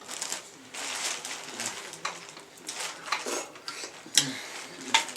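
Handling of king crab legs and dishes while eating: shells rustling and cracking, with clinks of dishes and utensils and two sharp clacks, about four seconds in and near the end.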